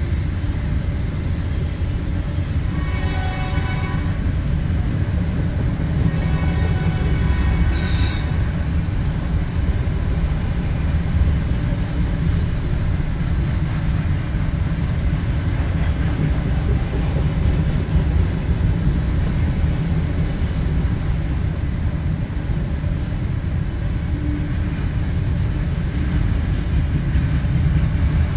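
Freight train of autorack cars rolling through a level crossing, a steady low rumble of wheels on rail heard from inside a car. Two brief pitched tones come a few seconds in, and there is a sharp click about eight seconds in.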